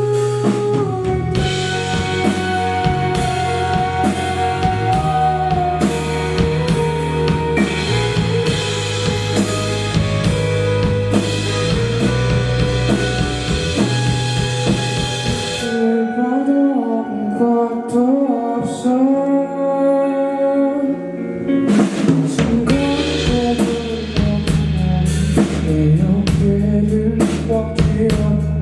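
Live indie rock band playing, with a full drum kit, bass and guitars. About halfway through, the drums and bass drop out to a quieter held guitar passage, and the full band crashes back in a few seconds later.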